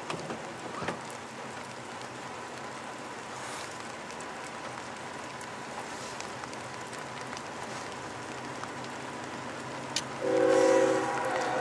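Steady hiss of rain, then about ten seconds in a locomotive's multi-chime air horn sounds a chord, loud for about a second and then going on more softly.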